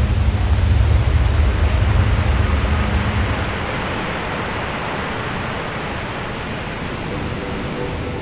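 Rushing roar of breaking surf, with a heavy low rumble for the first three seconds before it eases to a steadier wash of whitewater.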